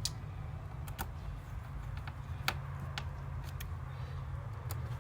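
Scattered light clicks and taps, about seven in all at irregular spacing, as a small screwdriver works the screws of a plastic laptop bottom case cover, over a steady low hum.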